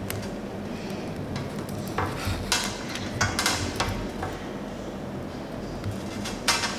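Small clicks and scrapes of a silicone watch strap being worked into the slot of a smartwatch case, a cluster of sharp ticks about two to four seconds in and a louder click near the end. The strap's second end is not sliding in.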